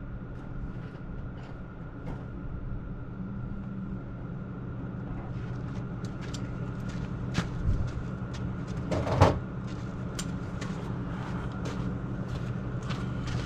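A steady mechanical hum runs throughout, with scattered metal clinks and knocks of tools being handled and a louder clank about nine seconds in.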